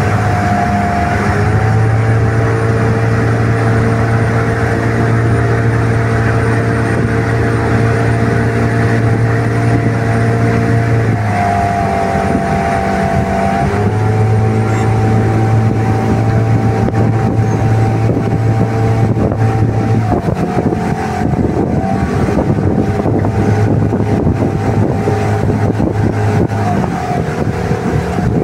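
Boat engine running under way, a steady low hum with a rushing noise of water and wind over it. The engine's tone shifts a few times: it steps up around eleven seconds in, and the low hum fades out near twenty seconds and again near twenty-seven seconds, leaving a rougher rushing noise.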